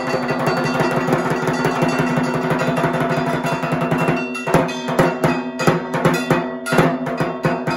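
Bengali dhak barrel drum beaten with two thin sticks: a fast, dense roll that breaks about four seconds in into a sparser, accented rhythm. A metallic ringing, like a struck bell-metal plate, goes along with it.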